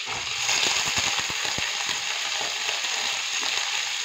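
Washed cauliflower florets going into overheated oil in a kadhai, frying with a sizzle and many small spitting crackles. The sizzle swells about half a second in as more florets hit the oil.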